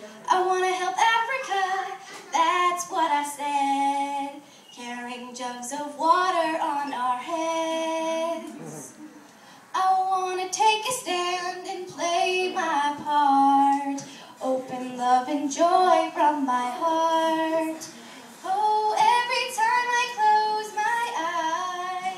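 A girl singing without accompaniment, phrases of held and gliding notes with short breaths between them.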